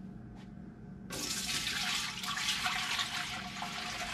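Raw milk pouring in a steady stream from a glass jar into a large stainless steel stockpot. The pour starts about a second in.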